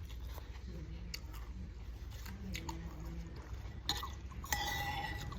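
Close-up chewing of noodles, with small wet clicks and a louder, sharper sound about four and a half seconds in.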